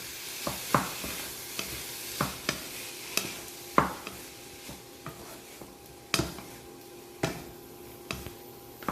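Fried rice being stirred in a hot pan with a utensil just after soy sauce and honey are added: irregular scrapes and knocks of the utensil against the pan over a sizzle that fades after about four seconds.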